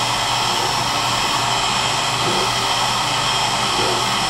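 Heat gun blowing hot air on a low setting, a steady rushing hiss with a faint motor hum, shrinking a clear plastic capsule onto a wine bottle's neck.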